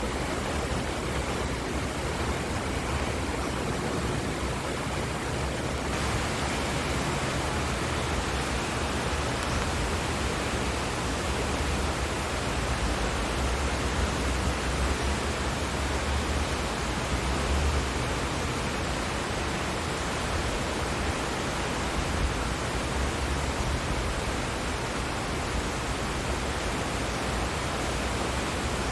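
Steady rain making a dense hiss that grows brighter about six seconds in, with a low rumble underneath that swells and fades midway.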